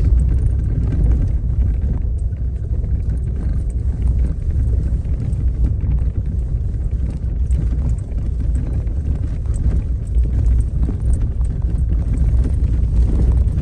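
Vehicle driving over a rough gravel road: a steady low rumble of tyres and engine, with scattered small clicks of loose stones.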